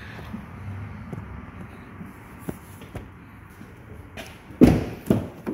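A 2011 Ford F-150's rear door shut with a heavy slam about four and a half seconds in, followed by two smaller knocks. Before that, only faint handling rustle.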